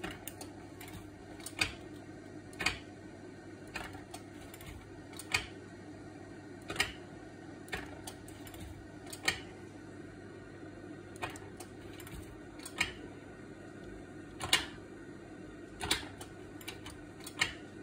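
Kodak Carousel slide projector running with a steady hum from its cooling fan, while its slide-change mechanism clacks about a dozen times, roughly once every second or so, as it is cycled from the remote.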